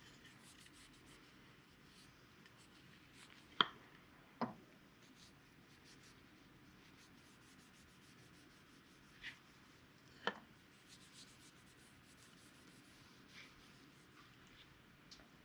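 Faint rubbing of a rag working wood stain over a wooden axe handle, with a few sharp light taps, two close together about a quarter of the way in and another past the middle.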